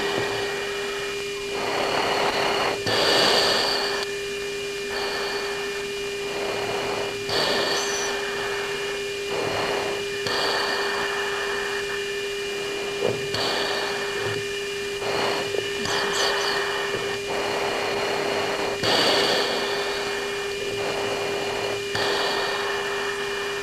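Cockpit audio of a US Air Force jet: a steady hum tone under a constant hiss, broken every second or two by short bursts of radio static.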